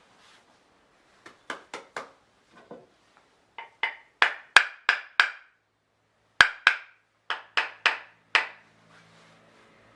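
Hammer taps on a wooden Japanese hand plane (kanna), setting the blade's depth: about seventeen sharp wooden knocks in small groups of two to four, with a pause a little past the middle.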